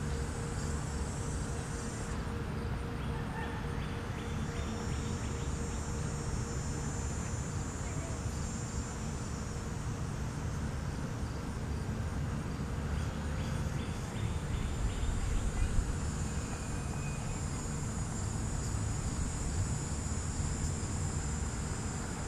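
Outdoor summer ambience: a high, steady drone of insects that swells and fades in stretches, over a low constant rumble.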